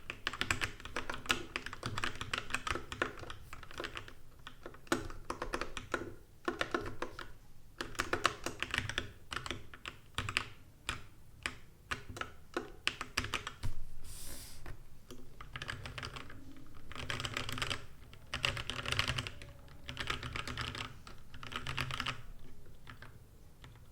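Mechanical keyboard with Gateron Yellow linear switches being typed on in quick bursts of key clacks with short pauses between them. The typing stops about a second before the end.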